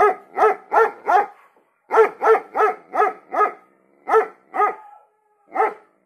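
A dog barking: a run of four quick barks, then five, then two, then a single bark near the end.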